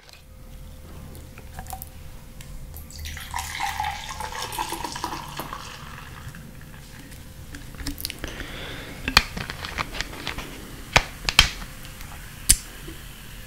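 Orange soda poured from a plastic bottle into a glass with ice, a fizzing splash lasting about four seconds. Several sharp clicks and pops follow in the second half.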